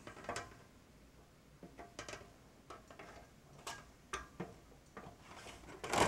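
Scattered light clicks and taps of a cover panel being handled and slid onto a rack-mount fiber patch-panel housing, with a few sharper clicks near the end as it seats.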